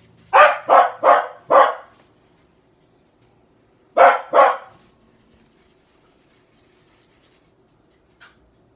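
A dog barking: four quick barks, then two more a couple of seconds later.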